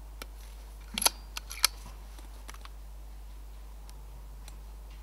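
A short run of sharp mechanical clicks and knocks from an air rifle and its tripod mount as they are handled and repositioned. The loudest come as a pair about a second in and one more half a second later, with a few faint ticks after.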